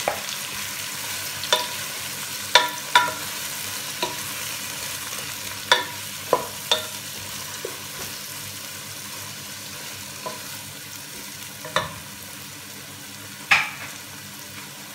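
Raw chicken strips frying in a nonstick pan with a steady sizzle, stirred with a wooden spatula that knocks against the pan about ten times, the loudest knock near the end.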